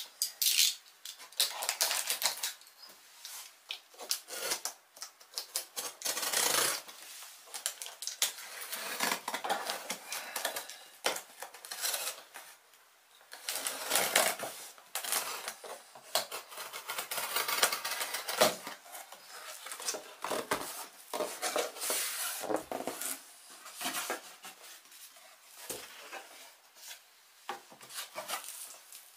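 Utility knife cutting through the packing tape on a cardboard box, with cardboard flaps scraping and rustling as they are opened; irregular scratchy strokes and small clicks, with short pauses.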